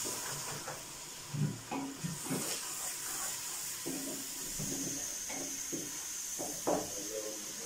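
Spice masala of onion, ginger-garlic paste and ground spices frying in oil with a little added water, giving a steady sizzle and hiss. A few short clatters come from stirring it in the pot.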